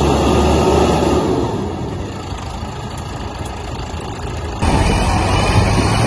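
Engine of a self-loading concrete mixer running steadily as the machine works. The sound drops somewhat in the middle, then jumps back louder and changes abruptly about four and a half seconds in.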